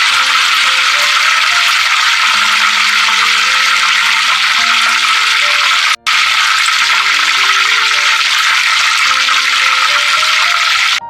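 A steady, loud hiss over soft piano music. Both cut out for an instant about six seconds in.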